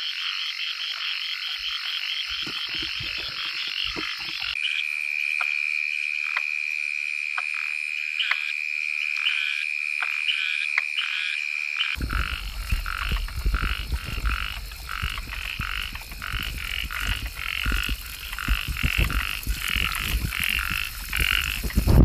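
A chorus of small paddy-field frogs calling with rapid, repeated croaks. For a stretch in the middle a steady high-pitched trill runs beneath them, and about halfway through a low rumbling noise comes in under the calls.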